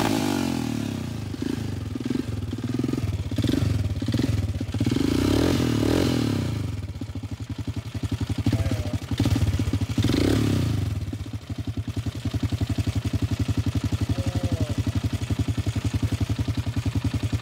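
Honda ATV engine running, swelling up and down several times in the first ten seconds, then settling into a steady idle. The engine runs but the quad won't go into gear.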